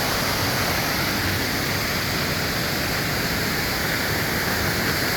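Steady rush of water from a waterfall and creek, an even unbroken noise.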